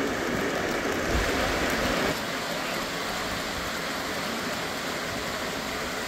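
Three-rail model train cars rolling along the track, a steady rushing noise that drops quieter about two seconds in.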